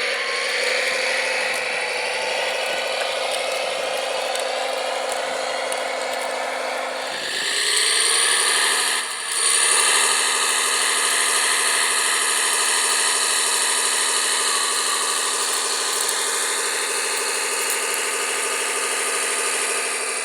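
Electric drive motors and hydraulic pumps of radio-controlled model construction machines running with a steady, pitched whine. About seven seconds in the pitch shifts and the whine gets louder, dipping briefly near nine seconds.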